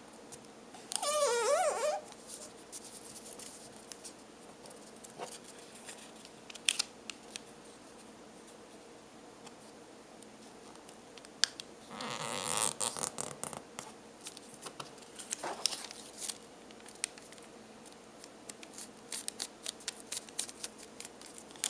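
A sheet of lined notebook paper being folded and creased by hand: a loud sliding rub with a wavering squeak about a second in, a longer rustle around the middle, and quick small crackles near the end as the folded point is pinched.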